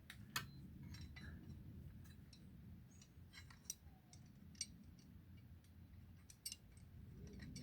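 Faint, scattered metallic clicks and taps as a bolt, a bracket and a tool are handled and fitted in a tight space, over a low steady hum.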